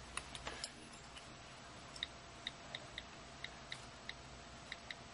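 iPod touch on-screen keyboard clicks as an Apple ID is typed: a few soft taps in the first second, then from about two seconds in a run of short, faint ticks at an uneven typing pace of about three a second.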